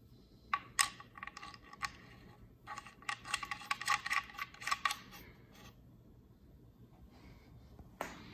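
Quick runs of small clicks and rattles from a hand working the rear binding posts of a Q Acoustics 3020i bookshelf speaker, with a dense flurry in the middle. A single sharp knock comes near the end.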